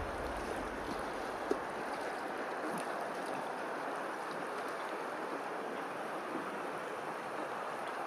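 Steady wash of rippling, lapping water, with one small tick about one and a half seconds in.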